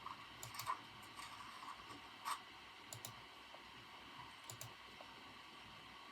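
Computer keyboard typed on softly: scattered keystrokes in short irregular runs, the loudest single click about two seconds in, over a faint steady background hiss.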